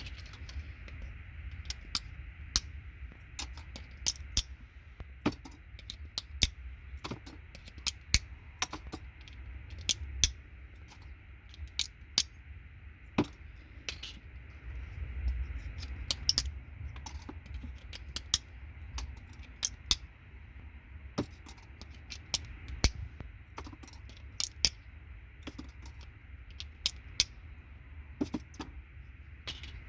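Irregular sharp clicks and snaps of RJ45 jack housings being bent and pried apart by hand, plastic and small metal pins clicking, about one or two a second.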